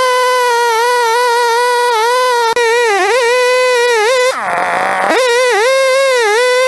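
Large two-stroke chainsaw running at high revs while ripping a log lengthwise on an Alaskan chainsaw mill. Its pitch sags a few times under the load of the cut, dropping deeply just after 4 seconds before winding back up.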